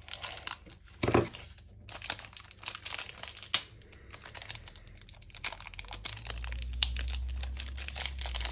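Crinkling and tearing of a 2022 Select Footy Stars Prestige trading-card pack wrapper being torn open and crumpled, with irregular crackles and clicks of handling. A low rumble joins in during the last couple of seconds.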